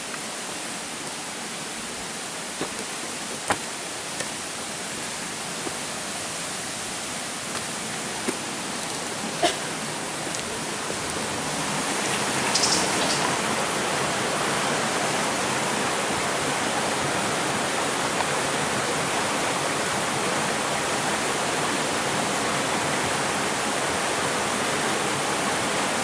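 Steady rush of flowing water from a stream or waterfall, a hiss that grows louder about halfway through. A few sharp clicks in the first ten seconds.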